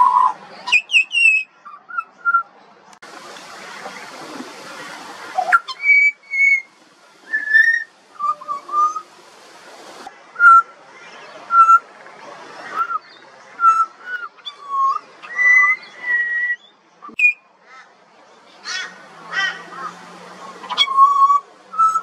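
A juvenile pied butcherbird singing a slow run of short, clear whistled notes, about one note or two-note phrase a second, each pitched differently, some sliding up or down. A few seconds in, a couple of seconds of rushing noise sound under the song.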